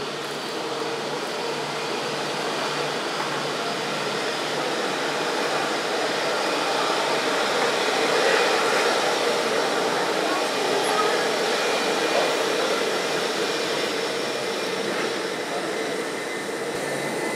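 Airbus A321-100's twin jet engines whining steadily at low taxi power as the airliner taxis past, swelling a little toward the middle and easing off near the end.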